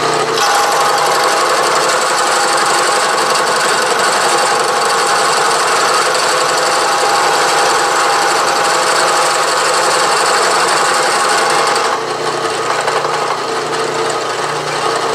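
Milling machine's gear cutter cutting a tooth space in a steel gear blank: a steady cutting noise over the hum of the running spindle. The cut ends about 12 seconds in, leaving the mill running on its own.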